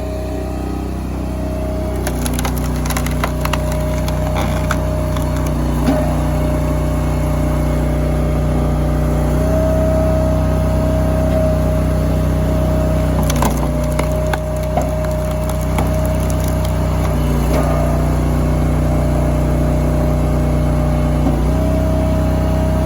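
Engine-driven hydraulic firewood splitter running steadily, its note shifting every few seconds as the ram works, while hardwood logs crack and split apart, with sharp splintering cracks a couple of seconds in and again about two-thirds of the way through.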